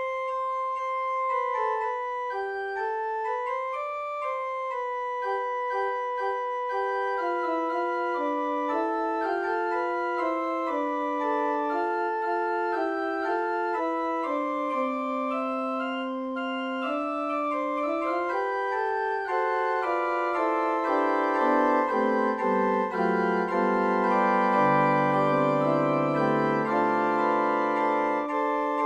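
Electronic organ playing an improvised slow melody in long held notes. From about two-thirds of the way through, lower chord notes join and the music grows louder.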